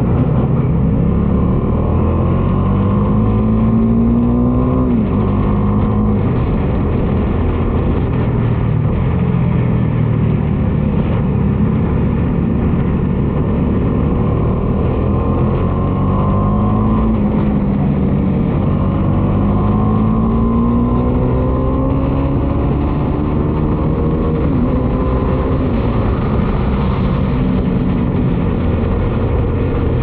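Bajaj Dominar 250's 248.8 cc single-cylinder engine pulling through the gears, its pitch climbing under acceleration and dropping back at upshifts a few times.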